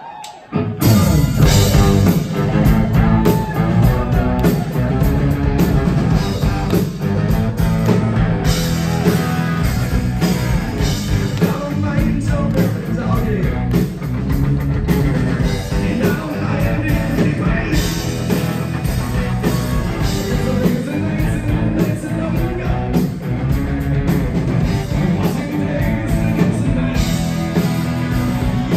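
Live rock band playing a song on electric guitars, bass and drums, all starting together about a second in and carrying on loud and steady.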